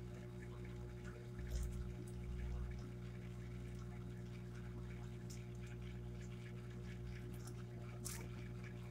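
A steady low hum throughout, with a few faint clicks and soft low bumps in the first few seconds.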